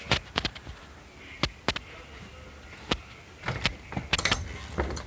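Irregular sharp clicks and metallic knocks, about a dozen, from hands and tools working on an electric air handler's sheet-metal cabinet while its fan section is pulled out, over a faint steady low hum.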